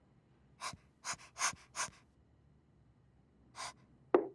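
Short breathy puffs from a cartoon character: four in quick succession about a second in, then two more near the end, the last one sharper, like a gasp.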